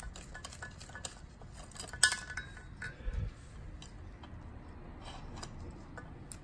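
Light metallic clinks and taps of steel flat bars and a bolt as a homemade valve-spring compressor is moved and fitted on a cylinder head. A sharper clink comes about two seconds in, and a dull knock a second later.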